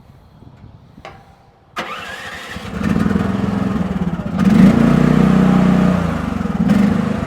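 Mini excavator's engine cranked by the electric starter and catching after about a second, then running and revving up, with a second rise in revs near the end.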